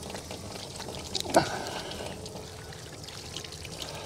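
Running water pouring and trickling while squid tentacles are rubbed clean under it, with a single sharp knock about a second and a half in.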